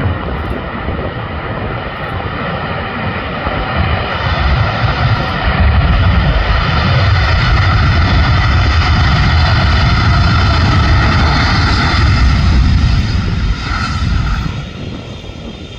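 Boeing 777 freighter's twin GE90 jet engines running loud as the aircraft rolls out on the runway after landing. The deep rumble with steady engine tones builds about a quarter of the way in, holds at its loudest as the jet passes close, and falls off near the end.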